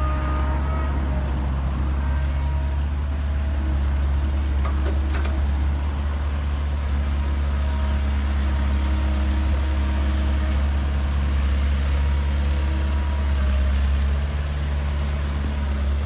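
Diesel engine of heavy machinery running steadily with a deep, even hum.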